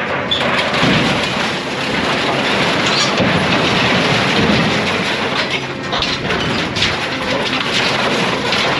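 Scrap metal clattering and crashing into a steel trailer as a material handler's grapple drops its load, over the rumble of the working machine.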